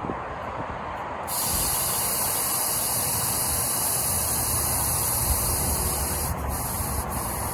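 Compressed air hissing steadily out through the Schrader valve of a TCI rear air-suspension bag as it is bled down. The hiss starts about a second in and stops near the end, as the bag deflates and the rear suspension lowers.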